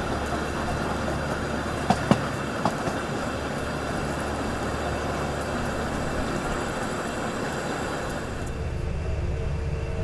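LHB passenger coaches running along the track, heard from an open coach door: a steady rumble of wheels on rail with rushing air, and a few sharp clicks about two seconds in. Near the end it gives way to a quieter, steady hum inside an air-conditioned coach.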